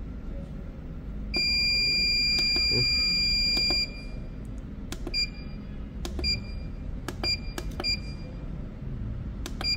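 Felicity Solar inverter's control panel beeping as its touch buttons are pressed: one long, steady beep of about two and a half seconds as a button is held to open the settings menu, then about five short beeps, one per button press, with faint finger taps on the panel.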